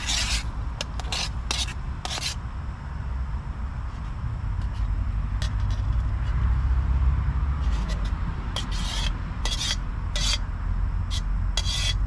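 A metal spoon scraping curry out of a titanium cooking pot, in repeated short scrapes: a bout in the first couple of seconds, a pause, then another bout near the end. Underneath runs a steady low rumble of motorway traffic.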